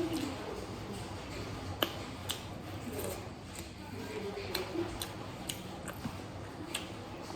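Close-up eating sounds: chewing through a mouthful of fish, with scattered short wet mouth clicks and smacks.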